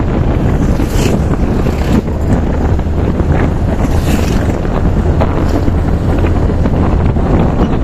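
Wind buffeting the microphone during a fast road ride: a loud, steady, low rumble.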